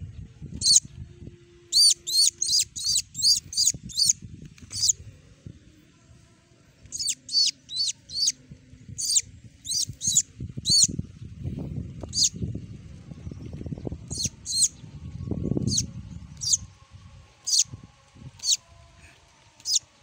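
Young bird chirping in sharp, high, repeated peeps, in quick runs of several a second at times and single calls at others, over low rustling of grass and handling.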